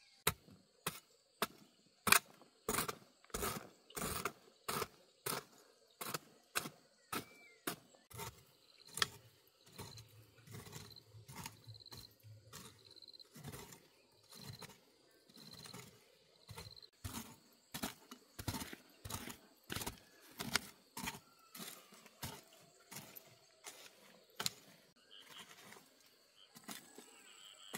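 A blade chopping into wood by hand: a long run of sharp strokes, about one and a half to two a second, slowing a little after the middle.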